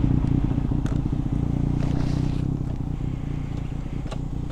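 Ducati Monster's L-twin engine running at low revs with a steady, pulsing beat as the motorcycle moves off slowly.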